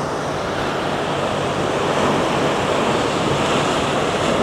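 Sea waves washing against a rocky coast in a steady surf, with wind on the microphone.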